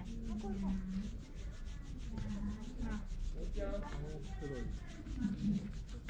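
Fingers scratching a cat's chin fur right against the microphone: a fast, steady scratchy rubbing.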